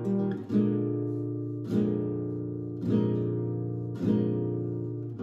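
Background music: an acoustic guitar strumming chords, a new chord struck about every second and left to ring down.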